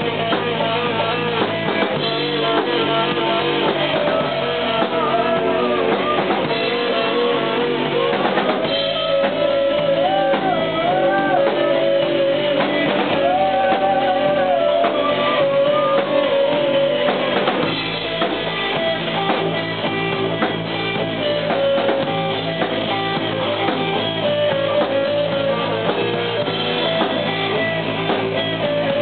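Music with guitar and a drum kit, playing without a break.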